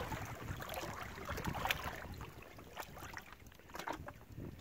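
A hooked trout splashing and thrashing at the surface right beside a pontoon boat, loudest at the start and then dying away, with several brief sharp sounds about a second apart.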